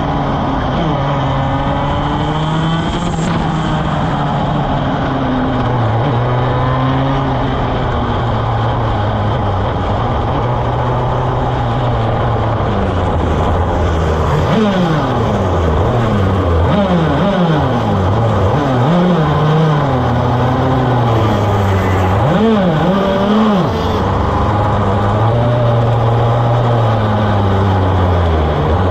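Onboard sound of a racing kart engine running at low speed, its pitch sagging and rising. In the second half come many quick rises and falls in revs, from this kart and the karts around it.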